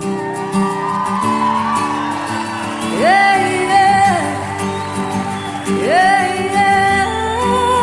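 Song with a female singer's wordless vocal ad-lib over band accompaniment, the voice sliding sharply up to a held high note twice, about three and six seconds in.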